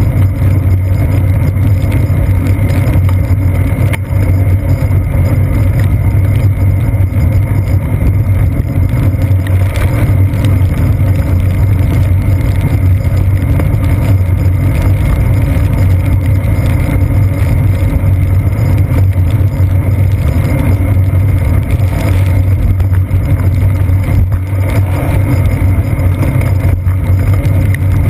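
Steady low rumble with a hiss above it: road vibration and wind picked up by a seat-post-mounted GoPro Hero 2 as a bicycle rides over wet pavement.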